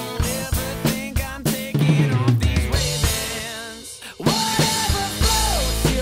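Tama Superstar Custom Hyperdrive drum kit with snare, bass drum and cymbals, played along to a band backing track. The music thins out and nearly drops away just before four seconds in, then kit and band come back in loudly with a cymbal crash.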